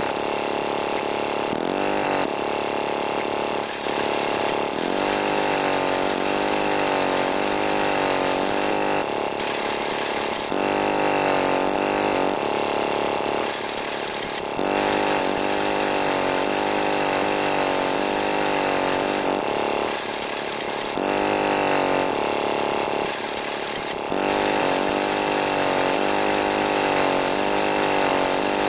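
Small motors of miniature model construction vehicles running, a continuous mechanical whine that wavers up and down in pitch in repeated sweeps, dipping briefly every few seconds.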